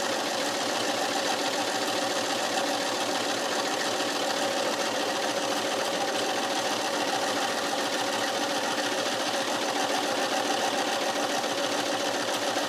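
Brother electric sewing machine running steadily, its needle stitching through fabric at an even speed.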